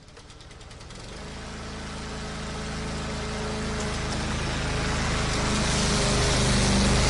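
Lawn mower engine running with a steady note, growing gradually louder from near silence.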